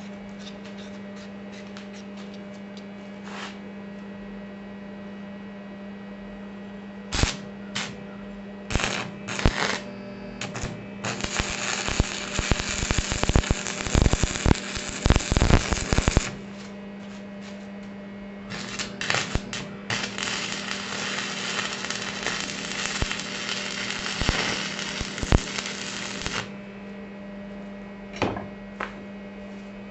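Arc welder tack-welding steel brackets to a steel plate: several short crackling strikes, then two longer runs of steady crackle and sizzle of about five and eight seconds, and a couple more short bursts near the end. A steady hum runs underneath.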